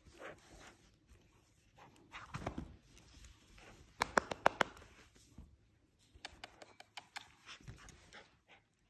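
A small dog's claws clicking on a hardwood floor as it scrambles and trots about during play, with a quick run of sharp clicks about four seconds in and lighter scattered clicks later.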